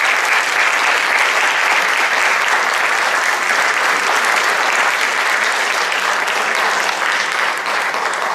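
Audience applauding with steady, dense clapping that eases slightly near the end.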